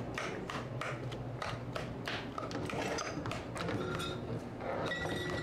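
Metal spoon knocking and scraping rapidly in a stainless steel mixing bowl as it mashes pineapple, about four strokes a second, with short metallic rings from the bowl.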